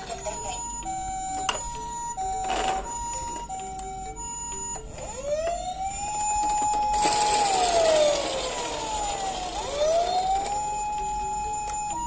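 Battery toy ambulance's electronic siren: a two-tone hi-lo 'pee-poh' siren, then about five seconds in a wailing siren that rises, holds, falls away and rises again. Plastic clicks and knocks from the toy being handled run through it.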